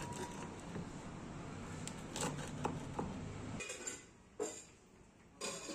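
Metal pizza-cutter wheel clinking and scraping on a wooden serving board over kitchen background noise. After the background drops, two more short, sharp scrapes come about a second apart.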